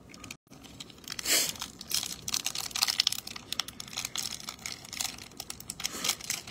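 Foil wrapper of a Magic: The Gathering collector booster pack crinkling and tearing as it is peeled open by hand, with one louder crackle about a second in and then dense crackling. The wrapper is thick and tight, so it takes some work to open.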